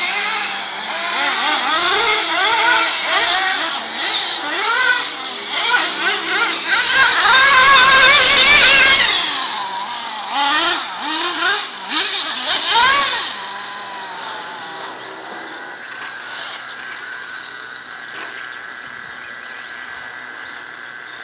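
Several radio-controlled off-road buggies racing, their small engines revving up and easing off in quick, overlapping rising and falling whines. The sound is loud for the first two-thirds, then drops to a fainter drone as the cars pull away.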